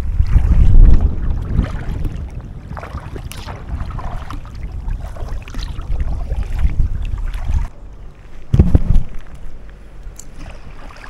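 Wind buffeting the action camera's microphone on a kayak, a heavy low rumble that drops off abruptly about eight seconds in, followed by one more short strong gust.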